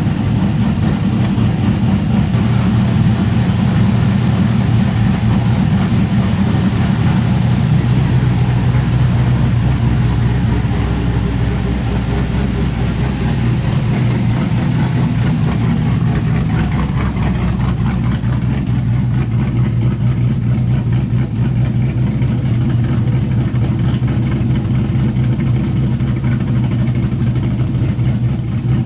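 LQ4 6.0-litre V8 in an LS-swapped 1960s Chevy C10 pickup running steadily, at about idle, on one of its first runs since the truck's rebuild. The engine's low, even note holds throughout, while the higher-pitched noise above it thins out about two-thirds of the way through.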